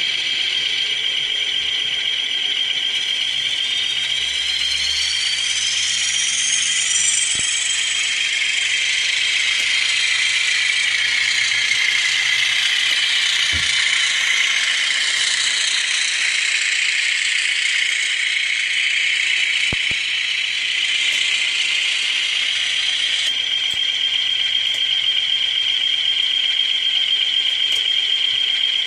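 DCC sound decoder in an N gauge Graham Farish class 20 model playing a Howes class 20 diesel engine sound through its small speaker, thin and tinny with a steady high whine. The pitch rises a few seconds in as the engine powers up, and a rattling hiss swells through the middle as the model runs past.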